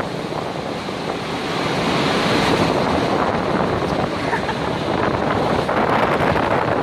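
Rough sea churning and breaking in white water below a semi-tender rig, a steady loud rushing, with wind gusting across the microphone.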